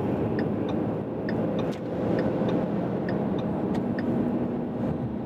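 2015 Ford Mustang EcoBoost's 2.3-litre turbocharged four-cylinder engine running steadily under light throttle, heard from inside the cabin along with tyre and road noise as the car gathers speed onto the highway. A faint light ticking repeats about twice a second.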